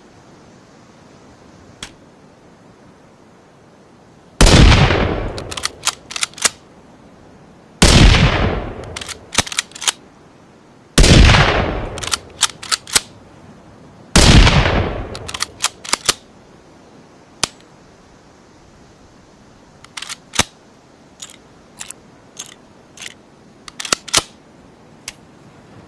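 Rifle gunshot sound effect, a hybrid of a Ruger American rifle and a rimfire rifle: four shots about three seconds apart, each with a long fading echo and followed by a few quick mechanical clicks. A run of quieter clicks follows near the end.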